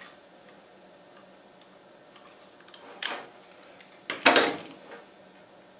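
Hand tools and an electrical cord being handled on a workbench: faint small clicks, a short clatter about three seconds in, and a louder clatter just after four seconds as a tool is set down on the bench.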